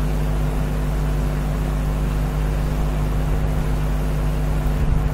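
A steady low hum from a running machine, with a buzz of fixed low tones.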